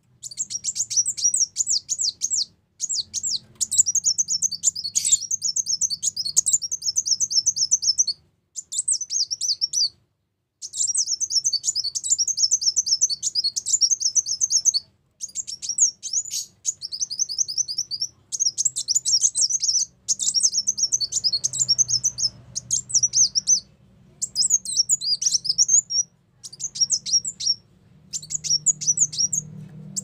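Ruby-cheeked sunbird singing: long runs of rapid, high-pitched twittering chirps, broken by short pauses every few seconds, over a faint low hum.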